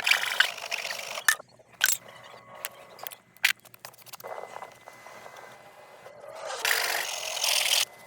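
Intermittent scraping and rubbing from hand work, with a few sharp clicks in the first half and a longer stretch of scraping near the end, typical of working body filler or sanding on a rust patch.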